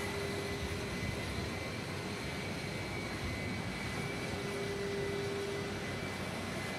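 Jet aircraft engines running steadily: an even rush with a high whine held at a constant pitch.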